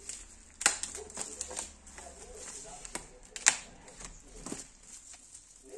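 Plastic wrap and bubble wrap crinkling and crackling as the packaging is cut with a box cutter and pulled open by hand, with irregular sharp crackles, the loudest two about three seconds apart.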